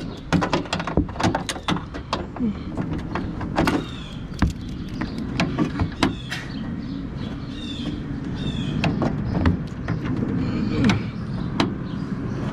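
Irregular clicks, knocks and clatter of hand tools and fasteners working on car trunk parts, with a few short squeaks, over a steady low background rumble.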